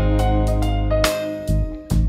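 Instrumental background music with plucked, guitar-like notes.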